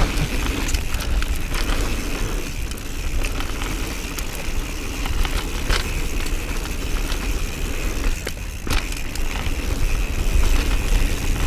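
Giant Trance mountain bike ridden fast down a dirt trail: continuous tyre noise with the chain and frame rattling and scattered sharp clicks, and a heavy low rumble of wind on the camera's microphone.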